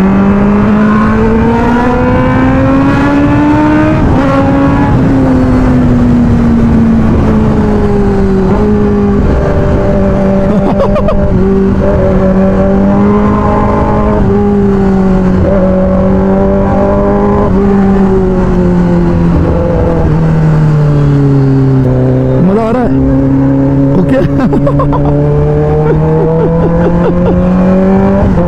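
Kawasaki ZX-10R inline-four with an aftermarket SC-Project exhaust, running under way. The revs climb over the first few seconds, ease off and hold steady, dip about three quarters of the way through, then rise again near the end.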